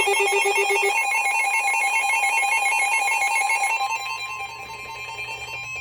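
Electronic weather-alert tones announcing a severe thunderstorm warning. A fast, warbling tone that alternates between pitches starts abruptly. About four seconds in it gives way to one steady, high alarm tone.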